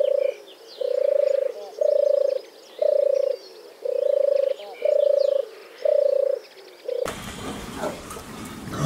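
A buzzy croaking call repeated about once a second, each call about half a second long. About seven seconds in it cuts off and gives way to the grunting of pigs in a pen.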